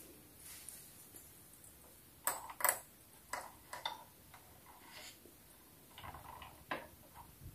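Light plastic clicks and taps as tiny toy medicine bottles are set down on a small plastic dollhouse shelf. The two sharpest clicks come close together a little over two seconds in, followed by scattered lighter ticks.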